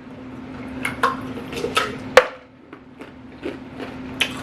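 Several sharp knocks and clicks, the loudest about two seconds in, over a steady low hum.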